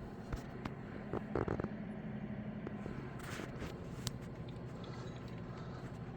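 A few light clicks and knocks of metal tools being handled on the milling machine, with a short scrape in the middle, over a steady low hum.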